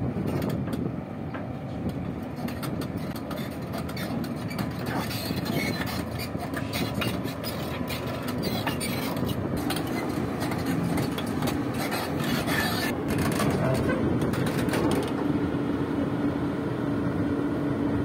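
Hyundai 305LC crawler excavator's diesel engine running steadily under load as it tracks onto a lowboy trailer, with its steel tracks clanking. The clanks come thickest in the middle, and the engine grows a little louder near the end as it climbs the ramps.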